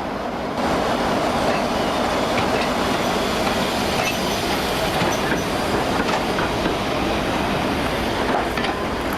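Train running along the track: a steady rumble of wheels on rail, getting louder about half a second in, with scattered light metallic clicks.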